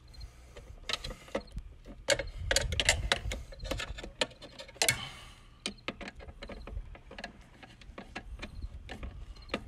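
Irregular clicks and small scrapes of a screwdriver on the metal terminal lug screws of a GFI spa pack, tightening the line-side hot wires down; the clicks come thickest in the first half, then thin out.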